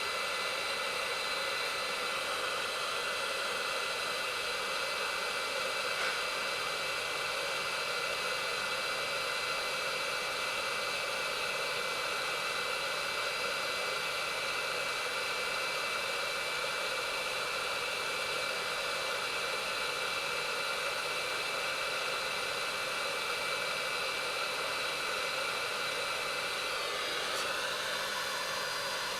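Hot-air rework gun of a soldering station blowing steadily: an even rush of air with a thin fan whine over it.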